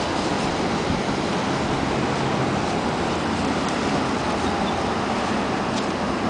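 Steady outdoor noise: wind rumbling on the microphone, mixed with road traffic.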